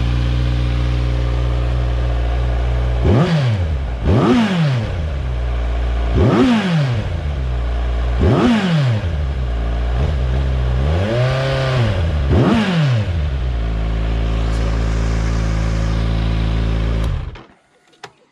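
Kawasaki Z900's 948 cc inline-four engine idling with the rear muffler removed. It is given about six quick throttle blips, the fifth held a little longer, and then idles again until it is switched off near the end. The engine is partly warmed up and not yet hot.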